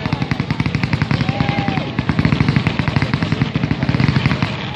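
Fireworks crackling in a rapid-fire string of small bangs, many per second, like machine-gun fire. The string stops abruptly near the end.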